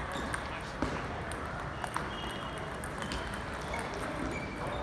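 Scattered, irregular sharp clicks of celluloid-style table tennis balls striking tables and paddles, over a steady hum of a large hall.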